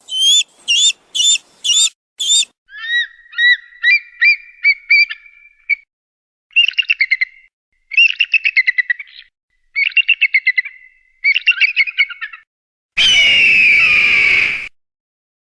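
Eagle calls. About five sharp, high calls come first, then several runs of rapid chirping, chattering trills. About 13 seconds in comes one louder, harsher call lasting under two seconds.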